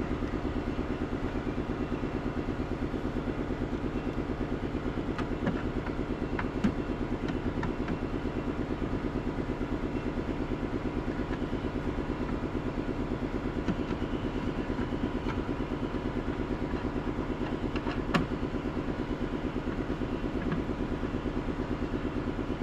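A steady idling engine or motor running evenly, with a few light clicks and taps over it.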